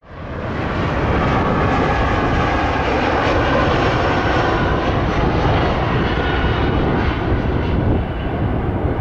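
Jet engines of a Boeing 747-400 converted freighter running: a loud, steady roar with a whine in it, easing slightly near the end.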